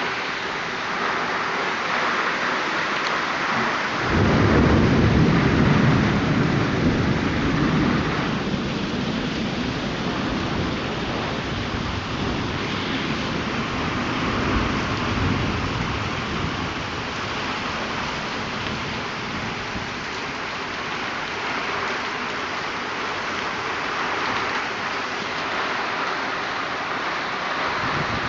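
Heavy downpour pouring steadily, with water streaming off the edge of a veranda awning. About four seconds in, a roll of thunder breaks suddenly and rumbles away over the next several seconds.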